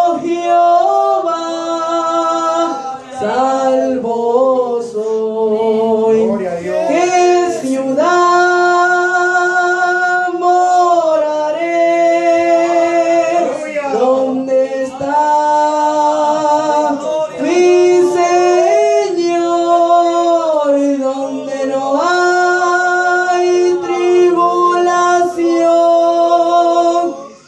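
A boy singing a Spanish worship song unaccompanied into a handheld microphone, holding long, sustained notes, with other voices singing along.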